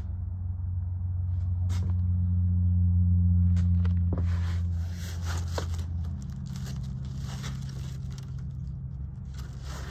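Paper rustling and handling as the pages of an old record booklet are flipped through, over a low steady rumble that swells and then eases off about six seconds in.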